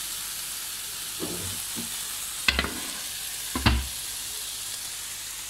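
Chicken wings and vegetables sizzling steadily on a hot grill pan, with two loud clunks about two and a half and three and a half seconds in as the pan is lifted off the stove and set down on the counter.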